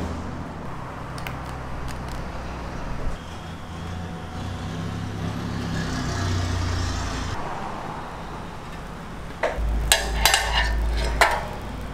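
Steady low street and traffic hum, with a hiss midway as thin crepe batter is ladled onto the hot steel griddle. Near the end comes a quick run of metal clanks and knocks as the steel batter-spreading frame is set over the griddle.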